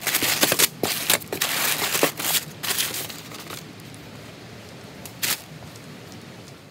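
Brown packing paper and plastic wrap rustling and crinkling as they are handled in a foam-packed shipping box. It is busiest in the first three seconds, then settles to a low hiss with one more crackle about five seconds in.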